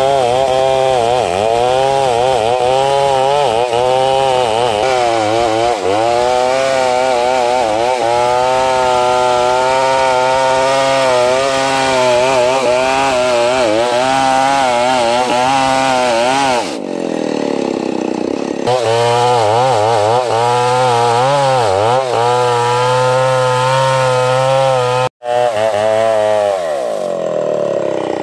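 Stihl 070 two-stroke chainsaw running at full throttle while ripping ulin (ironwood) timber lengthwise into planks, its pitch wavering under the load of the cut. About two-thirds of the way in the revs sink and climb back, and near the end they fall away.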